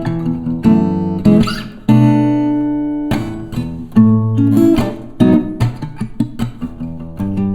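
Background acoustic guitar music, plucked and strummed notes at a lively pace.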